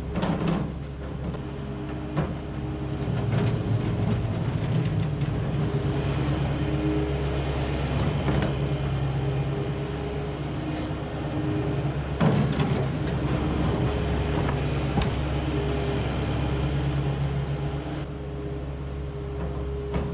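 Skid steer loader's engine running with shifting revs as its bucket scrapes manure off a concrete barn floor, with a few sharp clanks of the bucket.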